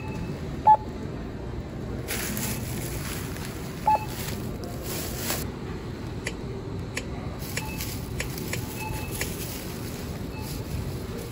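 Two short electronic beeps about three seconds apart over steady background noise, with a few fainter beeps.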